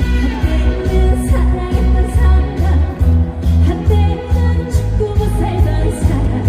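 Live trot song played loud through a PA: a singer over a backing track with a steady heavy bass beat and drums.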